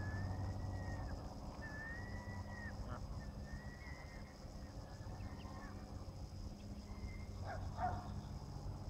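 Ducklings peeping: a run of drawn-out whistled calls, each just under a second long and dropping at its end, about one a second, fading away after about five seconds. A brief scuffling noise near the end, over a steady low hum.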